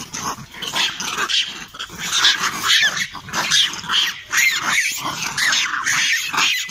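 Several macaques calling at once in many short, high cries that bend up and down, overlapping one another. These are the threat and alarm calls of a troop charging at the people catching them.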